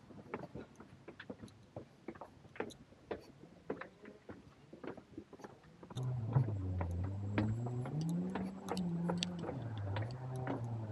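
Footsteps on a stone path, then about six seconds in a motor vehicle engine comes in, its pitch rising and falling as it revs.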